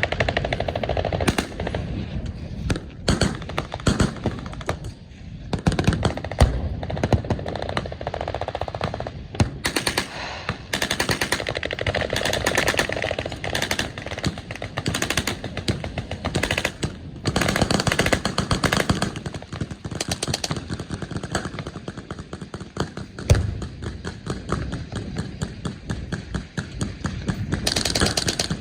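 Machine guns firing long, overlapping bursts of rapid shots, almost without a break, with only a couple of brief lulls.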